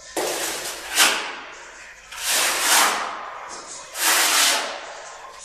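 Putty knife scraping and spreading tile adhesive over a concrete floor to level it, in about four separate strokes, one of them short and sharp about a second in.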